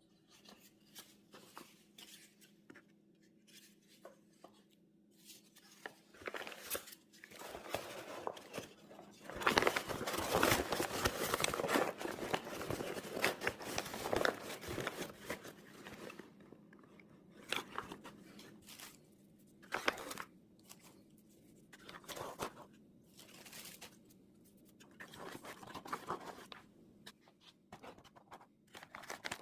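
Hands handling and working materials: rustling, scraping and scattered clicks, with a louder, busier stretch of scraping and rustling from about ten to sixteen seconds in.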